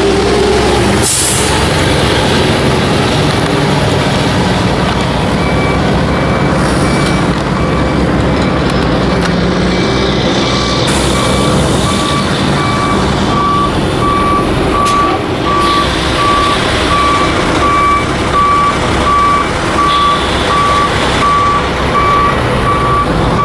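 Heavy construction vehicle's engine running steadily, with a reversing alarm starting about five seconds in and beeping at an even pace from then on. A sharp click sounds about a second in.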